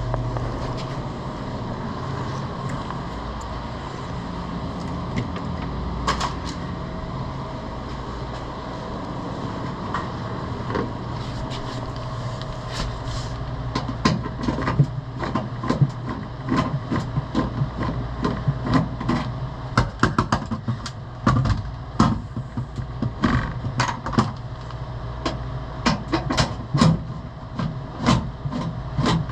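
Steady hum of the commercial refrigerator's running fan, joined about halfway through by a string of irregular clicks and knocks from hands and tools working on the unit's parts.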